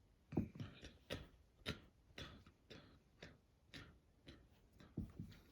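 Steady, even ticking, about two ticks a second.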